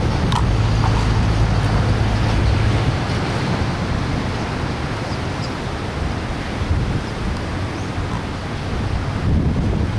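Wind buffeting the camera microphone as a steady low rumble. A low steady hum runs under it for the first three seconds or so.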